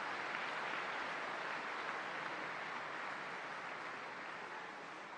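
Large audience applauding: a dense, even clapping that slowly fades.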